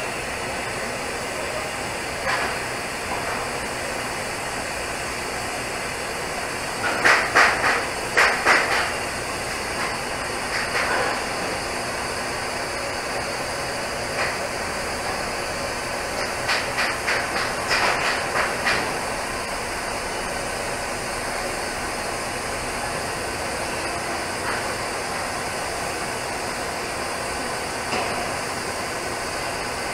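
TIG welding arc on a pipe joint, a steady hiss. Two quick runs of sharp ticks stand out, about seven seconds in and again about sixteen seconds in.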